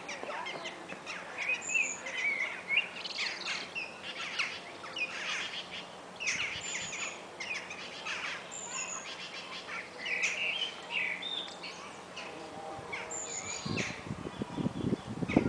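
Small birds chirping and calling, many short high chirps and whistles overlapping. Near the end a louder low-pitched noise comes in under them.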